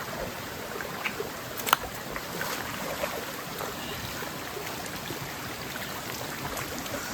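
Small stream of water running and trickling over stones, a steady rush. A single sharp click sounds about a second and a half in.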